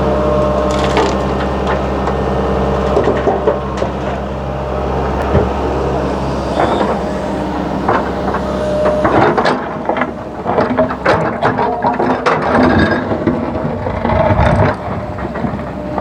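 Hitachi excavator at work: a diesel engine running under a clatter of crunching and cracking knocks, as the bucket digs and handles earth and rock. The knocks grow denser from about halfway through.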